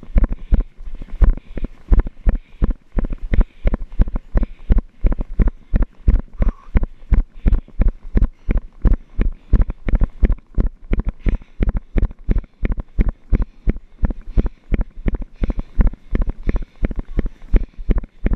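A runner's footfalls on a dirt path, about three steady thumps a second, jolting through a body-worn action camera.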